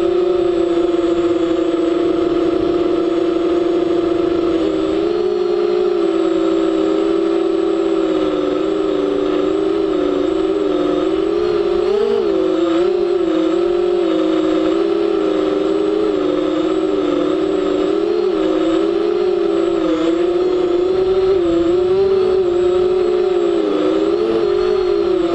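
Electric motors and propellers of an FPV drone whining, heard through its on-board camera. The pitch holds steady for the first few seconds, then wavers up and down with the throttle.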